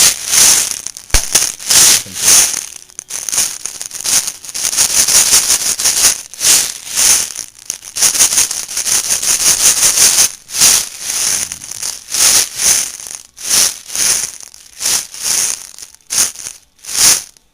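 Airsoft BBs rattling inside a hollow egg as they are filled in around a firecracker and shaken, in a long run of repeated loud rattling bursts.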